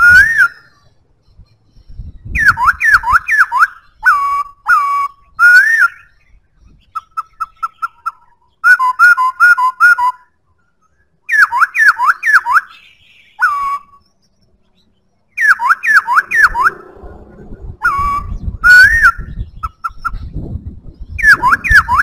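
Black-throated laughingthrush singing: loud, clear whistled phrases of swooping rising and falling notes, repeated with short pauses. About seven seconds in there is a quick run of short, even piping notes. A low rumble sits underneath in the second half.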